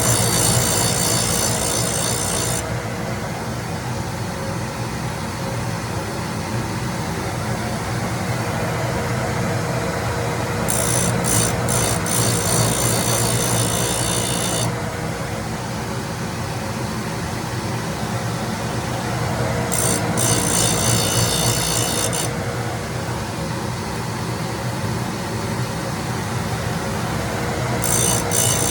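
Cutter grinder running steadily with a low hum while its wheel grinds the edges of a stack cutter. Each grinding pass adds a high hiss lasting a few seconds. There are four passes spaced about eight to ten seconds apart, as the cutter is taken down about five thousandths per tooth.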